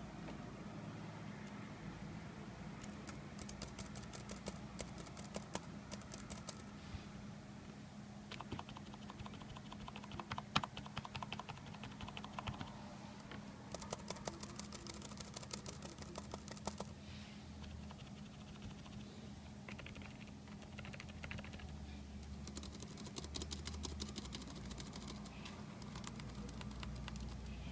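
Buffalo computer keyboard keys clattering under fast typing, in several bursts of a few seconds each with short pauses between.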